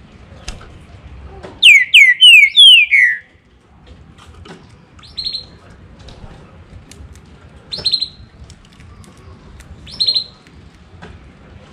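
Green-winged saltator (trinca-ferro) singing one loud, quick phrase of five falling, slurred whistles, then giving three short, sharp calls a few seconds apart.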